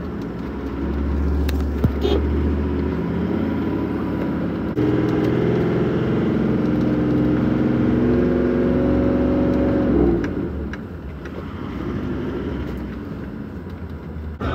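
Land Cruiser 4WD engine driving over soft beach sand, heard from inside the cab: a steady low engine hum, then about five seconds in the engine note jumps to a higher pitch under load and climbs slightly for several seconds before easing off. A couple of knocks in the first two seconds.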